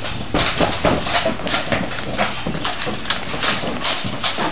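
Footsteps on hard pavement, a quick series of sharp clacks about three a second over a hissy outdoor background.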